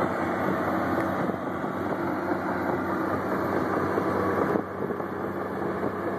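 Komatsu D65PX crawler dozer's diesel engine running steadily under load as it pushes a heap of clay, its sound easing slightly about four and a half seconds in.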